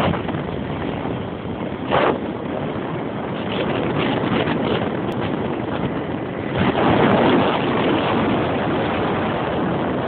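Wind rushing over the microphone of a camera riding on a Yamaha XT125X motorcycle, with the bike's small single-cylinder engine running underneath. The rush swells briefly about two seconds in and again at about seven seconds.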